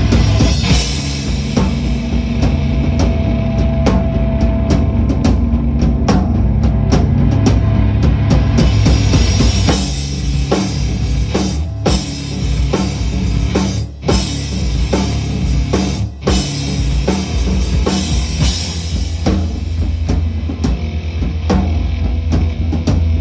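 Rock band playing: a drum kit with bass drum and cymbals drives the music, over sustained bass and guitar tones, with two brief breaks near the middle.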